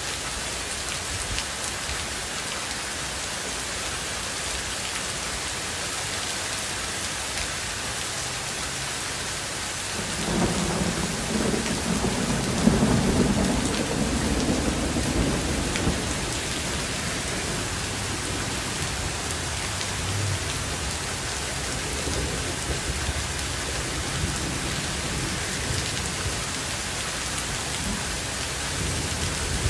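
Heavy rain pouring steadily onto pavement and grass. About ten seconds in, a roll of thunder builds for a few seconds and fades out by about sixteen seconds.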